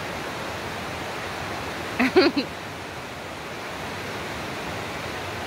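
Steady rushing noise with no pitch. About two seconds in comes a brief pitched sound of a few quick pulses, the loudest moment.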